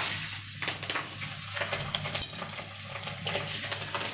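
Hot oil sizzling and crackling in an iron kadai as panch phoron spices and green chillies fry, with a spatula stirring and a few sharp clicks against the pan about halfway through.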